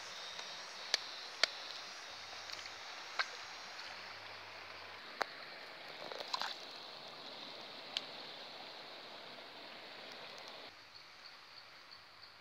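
Shallow stream water flowing, an even rushing hiss with a few sharp clicks over it. Near the end it cuts to a quieter background with faint repeated ticking.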